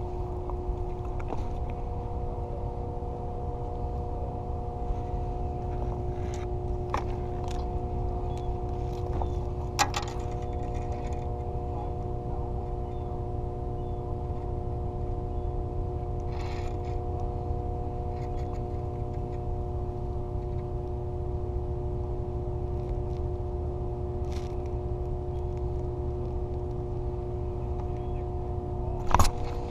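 Steady mechanical hum, a constant engine-like drone with a few fixed tones over a low rumble, under scattered faint clicks and one sharper knock near the end.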